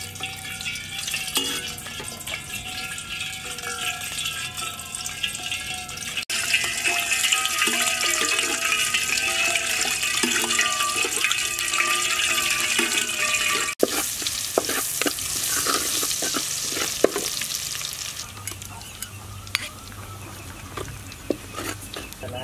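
Hot cooking oil sizzling in a wok, with a metal spatula scraping and tapping against the pan. In the last part, chopped garlic is frying in the oil as it is stirred, with many short taps of the spatula.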